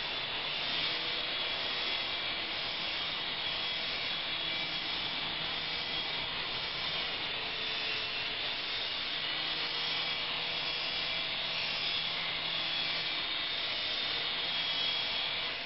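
An S107 mini coaxial RC helicopter's small electric motors and rotors whirring steadily in flight, with a thin high whine over the noise; it cuts off just before the end as it comes down.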